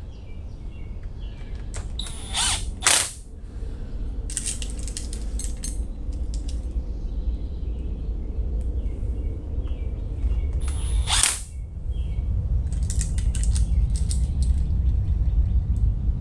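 Cordless brushless drill/driver running in two short bursts, about two and a half seconds in and again near eleven seconds, driving screws, with sharp clicks of small metal parts in between. A steady low rumble runs underneath.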